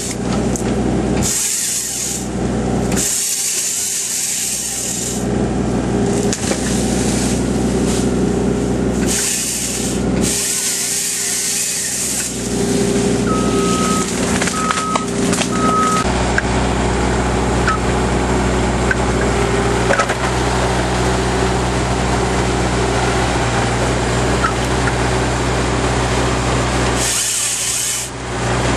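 Excavator engine running steadily while its boom-mounted chainsaw attachment cuts wood, the saw's hissing buzz coming in short bursts at first and then running almost continuously through the second half.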